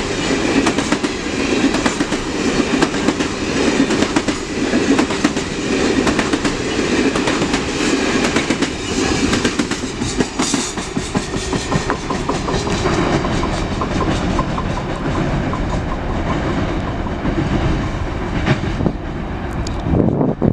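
CN train's railcars rolling past, their wheels clicking steadily over the rail joints.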